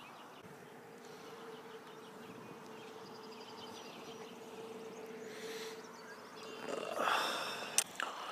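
A faint steady buzz that stops about six and a half seconds in, then a hooked bass splashing as it is lifted out of the pond, with a sharp click near the end.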